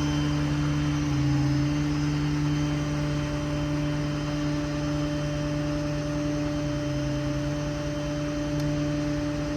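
A steady machine hum with a constant whine, from the mechanics truck's running machinery. The lowest part of the hum shifts briefly about a second in and again near the end.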